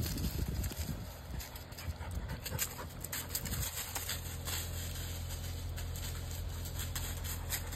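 Dutch Shepherd dog moving and sniffing through dry fallen leaves: irregular rustling and crackling of the leaf litter along with the dog's breathing, busiest in the first second.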